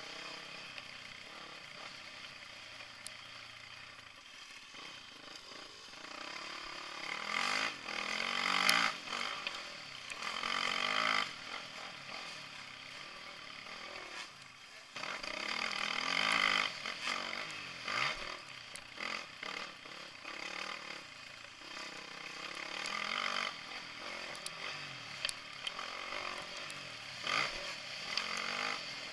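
Dirt bike engine heard close up from a camera on the bike, revving up and dropping back in repeated surges as it is ridden through the gears.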